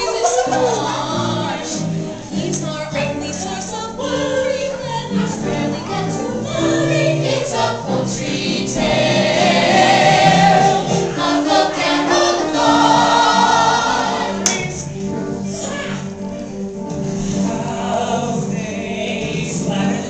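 A group of young performers singing a show tune together as an ensemble, with sustained notes that swell louder in the middle.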